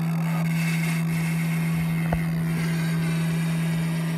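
Boat motor idling with a steady low hum, and a single sharp click about two seconds in.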